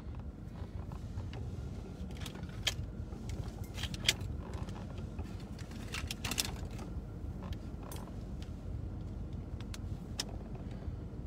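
Steady low rumble inside a car, with scattered short clicks and rustles of a phone being handled.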